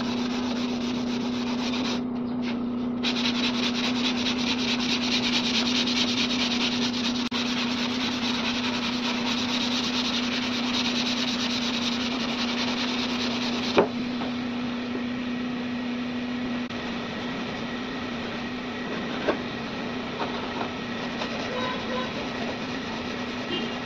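Body filler on a car's rear quarter panel being hand-sanded with sandpaper: a steady rasping rub of continuous strokes. A steady low hum runs underneath and stops about two-thirds of the way through, and there is one sharp knock a little past halfway.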